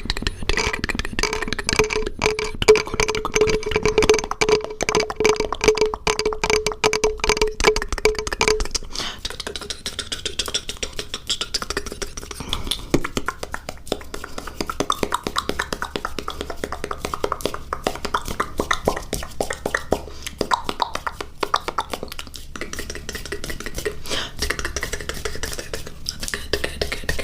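Close-miked ASMR mouth sounds: rapid clicks and taps of the tongue and lips. A steady held tone sounds under the clicks for about the first eight seconds, then stops, leaving only the clicking.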